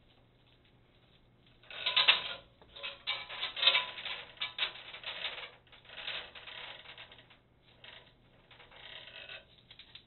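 Brunswick GS-X pinsetter elevator chain clattering and clinking in bursts as it is pulled down hand over hand and coiled, starting about two seconds in.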